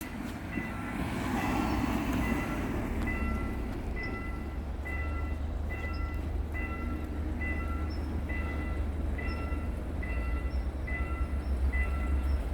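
Railway level-crossing warning bell ringing over and over in an even electronic ding, a little more than once a second, with a steady low rumble underneath.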